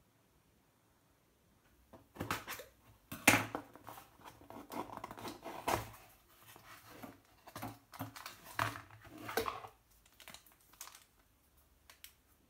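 Cardboard shipping box being opened by hand: flaps and a cardboard insert scraping, rustling and tearing, then the plastic wrap around the phone crinkling. The sounds are irregular and start about two seconds in, with the sharpest one about a second later, and die down to a few faint ticks near the end.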